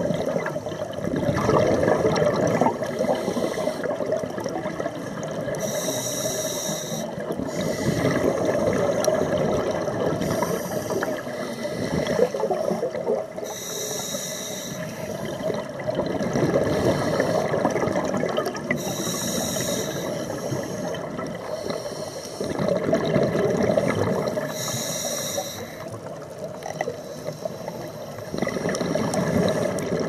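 Scuba diver breathing through a regulator underwater: a short hiss on each inhale, then a longer bubbling gurgle as exhaled air vents. Five or so breaths at an unhurried pace, one every five to six seconds.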